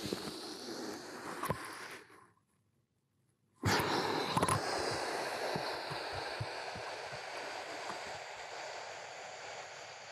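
A man's slow, deep breathing in a breathing exercise. One breath breaks off about two seconds in, then after a moment of silence a long hissing breath starts abruptly and fades gradually over several seconds.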